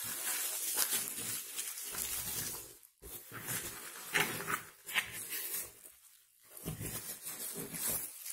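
Plastic bubble wrap rustling and crinkling as hands pull it open, in stretches with two short pauses, about three seconds in and just after six.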